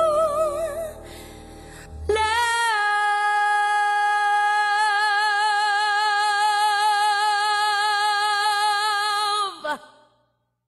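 Background music: a high female voice singing, holding one long note from about two seconds in, with a slight vibrato in its second half, then stopping near the end.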